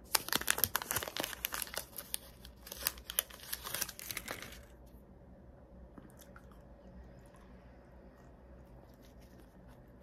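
Wrapper of a stick pack of bubble gum being torn open and crinkled: a dense run of crackling for about the first four and a half seconds, then only faint scattered rustles.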